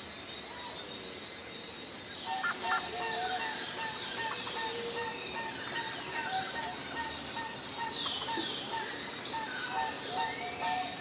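Small birds chirping, joined about two seconds in by a steady high insect-like drone and soft background music with short repeating notes.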